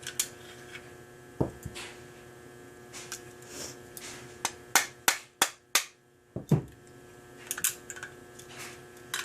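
Clicks and knocks of a Ruger Mark III pistol's steel parts being worked and tapped apart, with a quick run of four sharp taps about five seconds in and a heavier knock just after.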